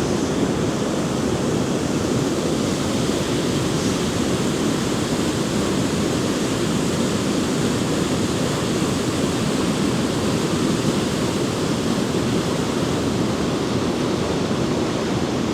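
Small cascading waterfall: steady rushing of water that does not change.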